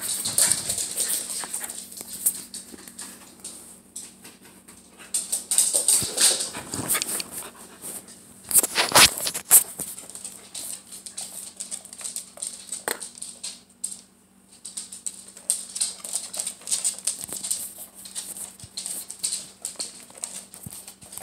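A small terrier-type dog sniffing and snuffling right against the phone's microphone, in irregular hissy bursts with rubbing and handling noise, loudest about nine seconds in.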